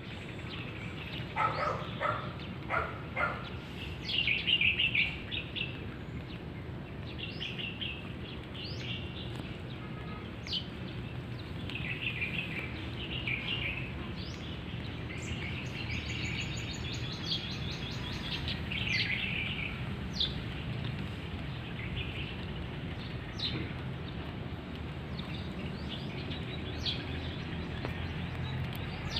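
Small birds chirping and twittering on and off, with a few short, louder calls in the first few seconds, over a steady low background rumble.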